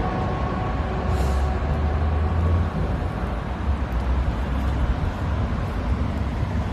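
Wind buffeting the microphone with a low rumble, loudest a second or two in, just after the outdoor warning siren's steady tone dies away at the very start.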